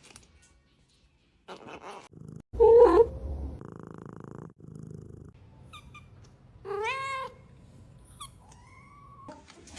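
Kitten meowing: a loud call about two and a half seconds in, a clear rising-and-falling mew around seven seconds, and a short high mew near the end, with a steady purr in between.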